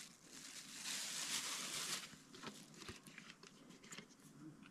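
Thin plastic bag crinkling as it is handled, loudest from about one to two seconds in, followed by scattered light clicks and crackles as a plastic water bottle is picked up and handled.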